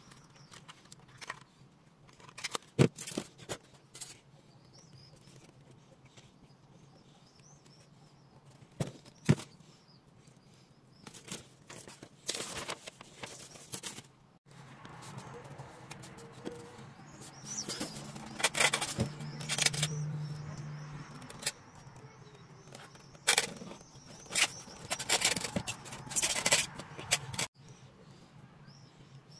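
Handling noise from unpacking: polystyrene foam packaging, a paper instruction sheet and small plastic parts rustling and clicking in short bursts, with a few sharp clicks and quieter spells in between. A faint steady low hum lies underneath.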